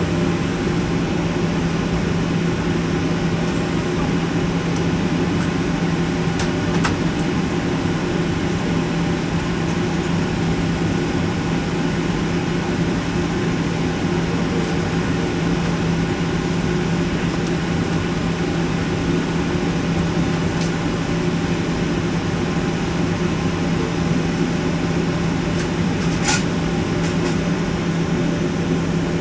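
Steady hum inside the cabin of a Boeing 737-800 taxiing with its CFM56 engines at idle, a constant low drone over the hiss of the cabin air, with a few faint clicks.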